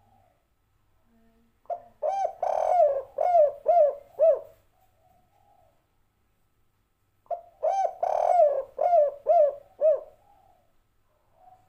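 Spotted dove (tekukur) cooing two phrases about five seconds apart. Each phrase is a few low coos ending in three short, separate 'kuk' notes, the 'kuk 3' song type.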